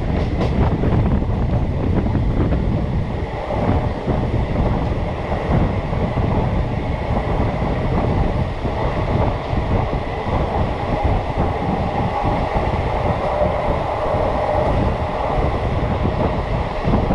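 Madurai–Chandigarh Superfast Express running at speed, heard from on board beside the coach: a steady rumble of wheels on the rails, with wind on the microphone.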